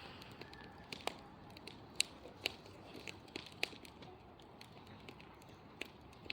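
Wood bonfire crackling: irregular sharp pops and snaps, two or three a second, over a low steady hiss.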